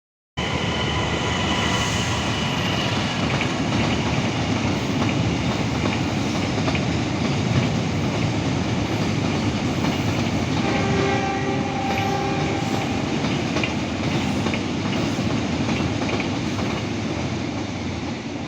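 A train running close by, with a loud steady rumble and wheel clatter. Its horn sounds for the first few seconds, then twice more in two short blasts about two-thirds of the way through.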